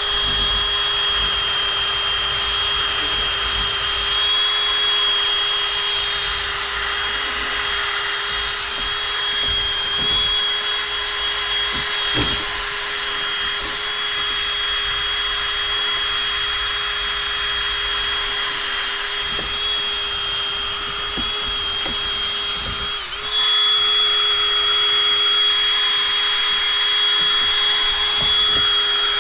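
Power drill spinning a wire brush against a 1939 Farmall H carburetor body, scrubbing off caked-on clay dirt: a steady motor whine under the scratch of the wire bristles. Near the end the whine dips for a moment, then runs on a little louder.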